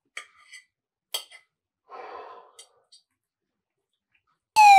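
A few faint clinks and a soft breath, then near the end a loud tone starts abruptly and falls steadily in pitch.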